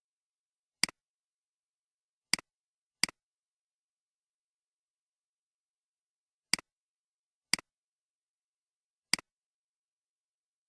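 Six sharp computer mouse clicks, irregularly spaced, with dead silence between them.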